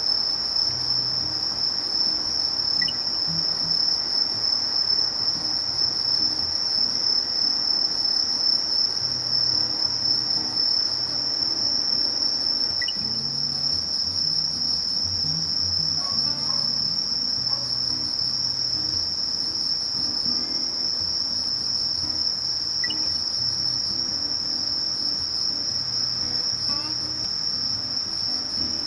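Sasakiri bush cricket (Conocephalus melaenus) singing a continuous, high-pitched "shiri-shiri-shiri" trill without a break.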